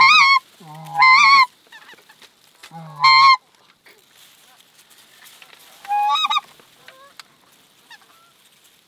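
Four loud honks on a short-reed goose call imitating a Canada goose, each a low note breaking up into a high, wavering honk, with fainter calls in the later seconds.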